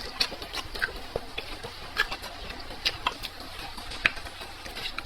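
Close-up eating sounds: chewing and wet mouth clicks, irregular and a few each second.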